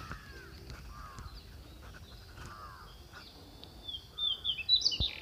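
Birds calling: a series of short, arching calls repeated every second or so, then a quick run of high, louder chirps about four seconds in. A single sharp click sounds just before the end.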